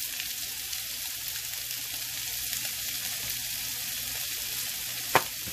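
Diced onion, carrot and celery sizzling steadily in a frying pan, with a single sharp click about five seconds in.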